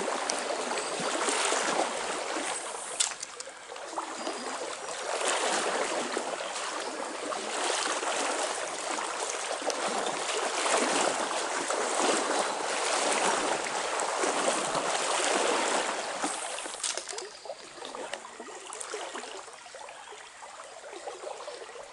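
Trout stream water rushing and trickling, a steady flow that swells and ebbs and grows softer over the last few seconds.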